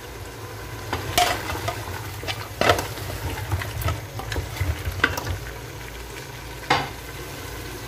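Mutton, onions and tomatoes sizzling in an aluminium pressure cooker while a wooden spoon stirs them, with a handful of sharp knocks of the spoon against the pot.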